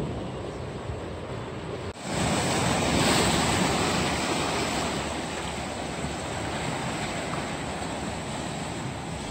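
Steady rush of seawater washing over shoreline rocks, with wind on the microphone; it gets suddenly louder and brighter about two seconds in.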